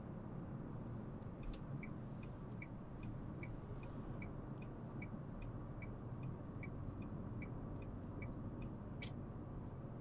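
Steady road and engine noise inside a Dacia Sandero Stepway's cabin at highway speed. Over it, a turn-signal indicator ticks in an even tick-tock at about two and a half ticks a second, starting a second or so in and stopping near the end.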